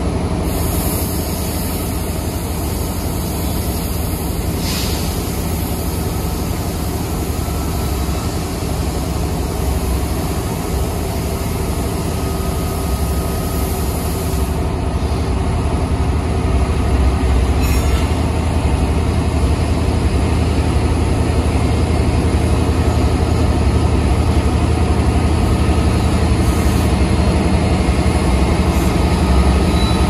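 Train rolling past, a steady rumble of wheels on the rails that grows somewhat louder about halfway through.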